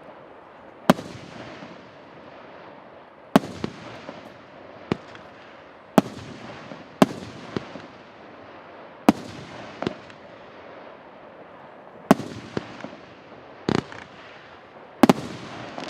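A 28-shot, 1.8-inch consumer fireworks cake firing. Its shells burst in sharp bangs about every one to three seconds, each trailed by a fading echo.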